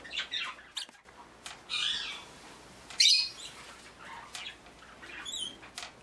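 Caged pet birds giving short chirps and squawks, scattered and irregular, the loudest one about three seconds in.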